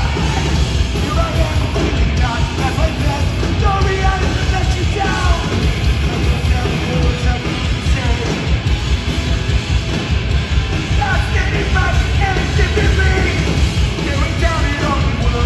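Live hardcore band playing loudly: distorted guitars, bass and pounding drums with a heavy low end, under shouted vocals.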